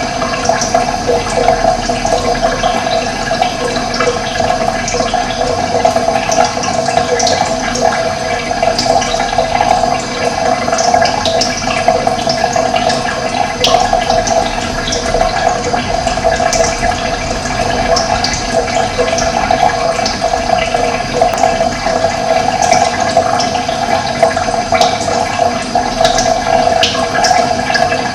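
Running water rushing steadily, with brief high bird chirps scattered throughout.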